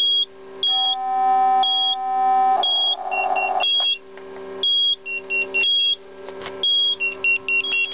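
MicroVision 400Z nurse call unit sounding its room alarm: electronic beeps about once a second, each a high tone stepping down to a slightly lower one, coming faster near the end. The beeping signals a new room alarm from a pressed emergency pendant. A lower steady electronic tone joins about a second in and turns to a warble before stopping.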